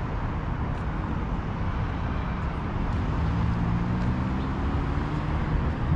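Steady road-traffic rumble, with one vehicle's engine rising in pitch as it speeds up past, from about halfway through until near the end.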